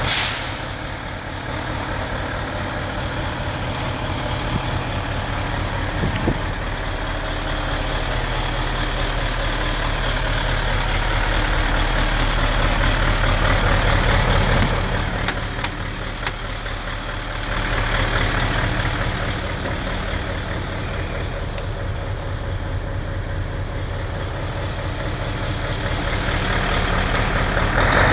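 Mercedes-Benz Actros 1848 tractor unit's diesel engine idling steadily. Its loudness rises and falls a little as the microphone moves around the truck.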